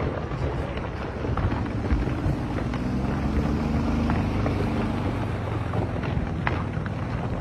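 Earthquake-triggered rockslide: a steady low rumble of rock and debris pouring down a cliff face, with a few sharp cracks of rocks striking.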